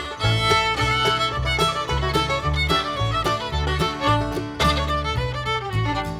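Background music: a fiddle tune over a bass line that steps from note to note.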